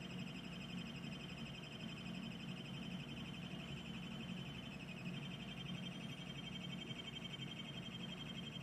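REM doll's electronic alarm giving a continuous warbling high-pitched tone that steps slightly higher about five seconds in, over a low steady hum. Its owners take the sound for a dying 9-volt battery being drained.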